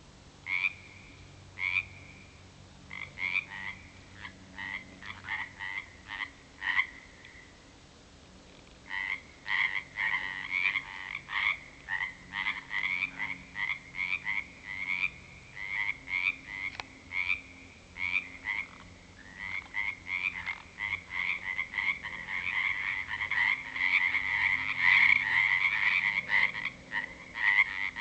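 Frogs croaking at a pond, many short repeated calls. The calls are scattered at first, pause briefly, then build into a dense, louder chorus near the end.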